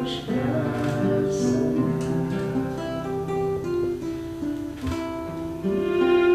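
Violin and classical guitar playing a slow tune together: long bowed violin notes that change pitch about once a second over plucked and strummed guitar chords.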